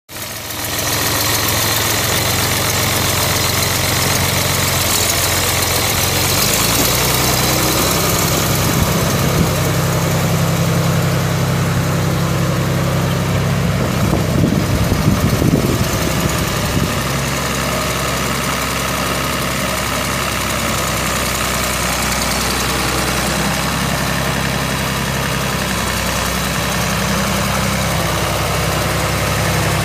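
John Deere 5.9-litre six-cylinder diesel engine of a 1986 John Deere 2950 tractor running at idle, steady, with a brief louder, uneven stretch about halfway through.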